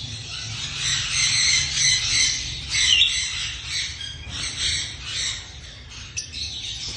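Lovebird chirping in a busy, unbroken stream of high calls, easing off after about five seconds.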